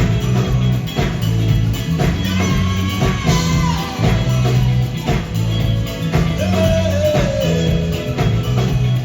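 Live band playing: a loud, busy bass line, guitar and regular drum and percussion strokes, with a singing voice or lead line gliding up and down over them.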